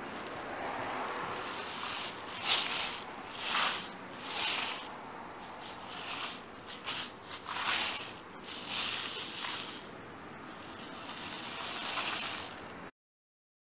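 Homemade cardboard-tube rainstick being tilted, its filling trickling through the tube with a rain-like hiss. The hiss swells and fades in a string of surges, about one a second, then stops abruptly near the end.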